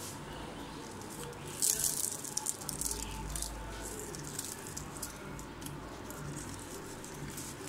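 Crisp, flaky fried chicken qatlama crackling as it is torn apart by hand, with a dense burst of crackling about two seconds in and scattered crackles after.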